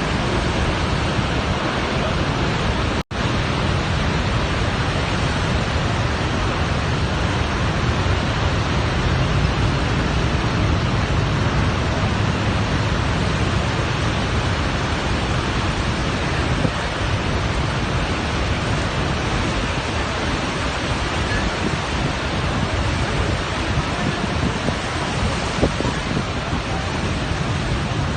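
Waterfall: steady, loud rush of falling water, cutting out for an instant about three seconds in.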